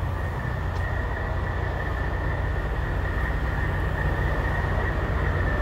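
Semi-truck diesel engine idling: a steady low rumble with a thin, steady high whine over it.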